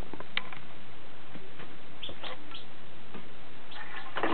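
A hatching chick inside its egg: a few short, faint peeps and ticks over a steady hiss, with a louder cluster near the end.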